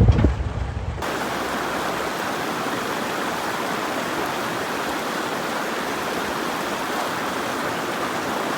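Steady rushing of a mountain stream, an even wash of water noise that holds at one level. About a second in, a louder, low-pitched passage cuts off abruptly and the water is left on its own.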